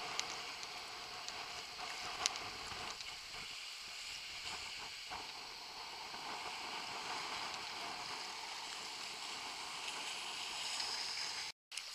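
Choppy seawater splashing and lapping close to the camera, a steady rushing hiss with a few small sharp clicks.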